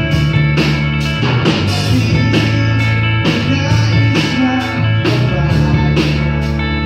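Live rock band playing: electric guitar over drums with a steady beat of about two cymbal-and-drum hits a second.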